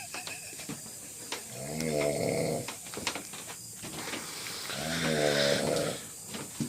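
A man snoring in his sleep: two snores, each about a second long and about three seconds apart, with quieter breathing in between.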